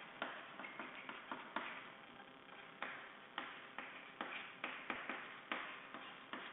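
Chalk writing on a chalkboard: faint, irregular taps and short scratches as each letter is stroked on, a few every second.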